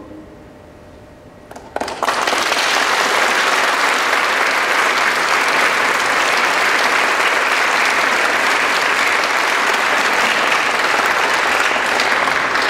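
A choir's held final chord ends at the start, and after about two seconds of hush an audience starts applauding, steady and loud to the end.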